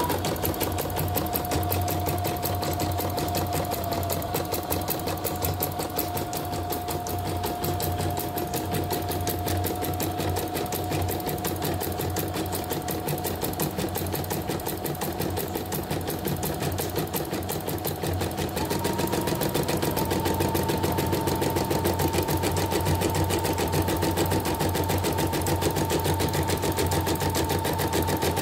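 YOKO portable computerised embroidery machine stitching a design at speed, with a rapid, even clatter of stitches and a steady motor whine. It has a newly replaced bobbin case (sekoci) and is stitching normally. About eighteen seconds in, the whine steps up in pitch and the stitching gets a little louder.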